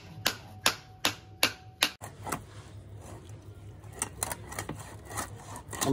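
A wooden stick striking the back of a cleaver blade to drive it through a large pangas catfish, with sharp, regular knocks about two and a half a second. About two seconds in, the knocks become fainter and irregular.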